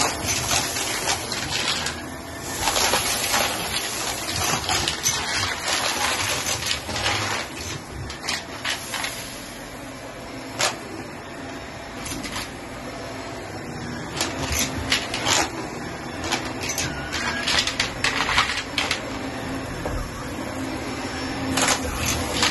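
Vacuum cleaner with a powered floor head running steadily on carpet, with clusters of sharp crackling rattles as loose debris is sucked up.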